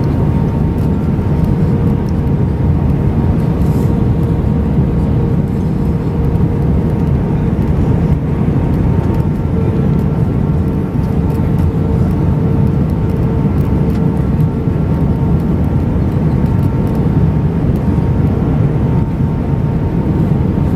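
Steady engine and airflow rumble inside the cabin of an Airbus A320-family jet airliner in flight, with faint steady whining tones over the noise.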